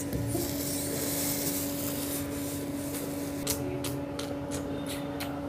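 Handling noise: rubbing and scuffing of plastic toy figures, then a run of light clicks from about three and a half seconds in, over a steady hum.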